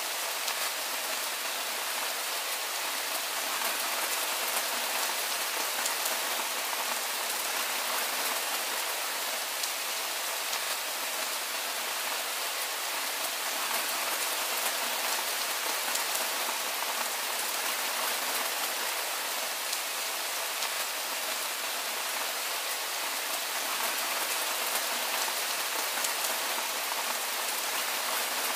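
Steady soft rain falling, an even hiss made of many small drops.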